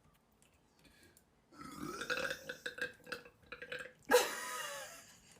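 A woman burping twice. First comes a long, wavering burp about a second and a half in, then a sudden, louder burp near the end that trails off.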